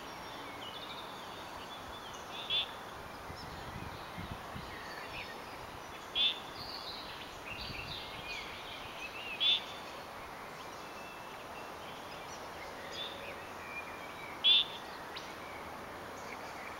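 Wild frogs and birds calling in a wetland: a short, loud pulsed call repeats four times, every three to five seconds, over scattered bird chirps and a steady background hiss.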